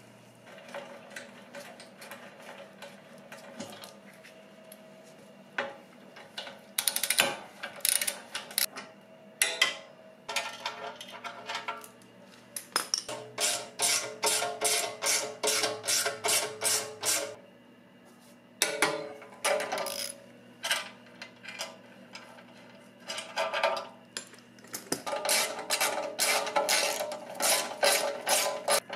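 Hand ratchet with a hex-bit socket clicking in runs of quick, even strokes as the skid plate's mounting bolts are driven in, with occasional metal clinks and knocks of tools and parts in between.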